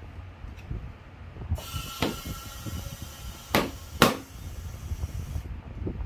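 Compressed air hissing into a scooter's tubeless front tyre, with two sharp pops about half a second apart as the tyre beads snap onto the rim. The hiss starts about a second and a half in and stops shortly before the end.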